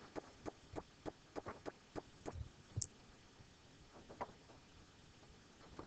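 Faint, soft clicks and taps from working the computer's controls: about a dozen irregular clicks in the first three seconds, then a few more around four seconds in and one near the end.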